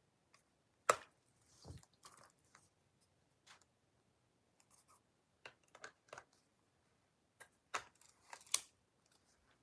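Small clicks and light rattles of a Canon EOS M100 mirrorless camera being handled as its kit lens is fitted to the body, with a sharp click about a second in and two more near the end.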